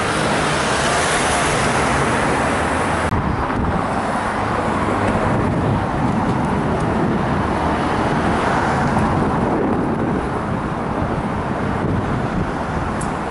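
City street traffic: cars and taxis passing, a steady rush of road noise, with a brief dropout about three seconds in.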